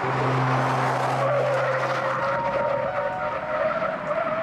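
GMC Hummer EV's tyres squealing on asphalt as the truck corners hard. It is a continuous screech whose pitch sags and then rises again near the end.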